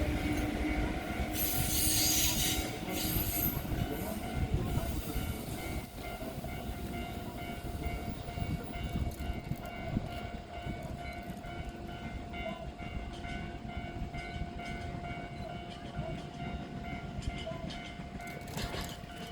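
Electric train at a station platform: a low rumble with a steady whine throughout, and a short hiss about two seconds in.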